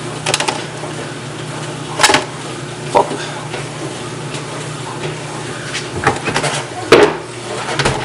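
Items being moved about in an open refrigerator: a few separate knocks and clatters, with a cluster of them near the end, over a low steady hum.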